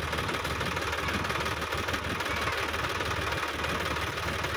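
Diesel engine idling steadily, with no revving.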